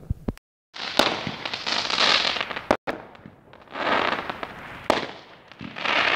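Consumer aerial fireworks going off: a few sharp bangs, then two long spells of dense crackling from the bursting stars, each lasting about two seconds. The sound cuts off suddenly at the end.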